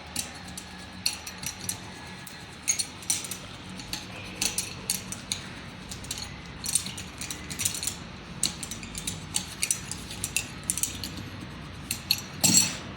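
Metal hand tools working on a truck tyre: irregular sharp clicks and short scrapes, several a second, with a louder cluster near the end.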